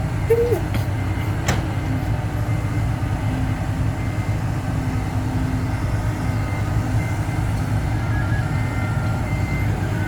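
Heavy diesel engine running steadily, a low rumble, with a short squeak about half a second in and a sharp click about a second and a half in.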